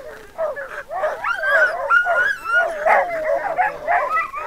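A team of harnessed sled dogs yipping, whining and howling together, many high calls overlapping and sliding up and down in pitch.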